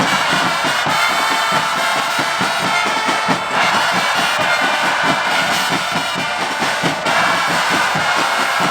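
Supporters' band in a football stand: drums beating a steady rhythm, about three strokes a second, under held brass horn notes, with the crowd behind.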